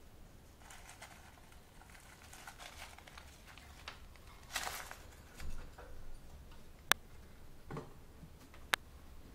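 Light rustling and scraping around a wire rat cage with wood-pellet bedding, louder for a moment about halfway through, and two sharp clicks, the loudest sounds, near the end.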